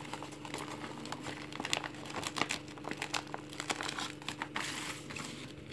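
Thin clear plastic packaging bag crinkling and rustling as hands pull a garment out of it, in many small irregular crackles with a denser burst of rustling near the end.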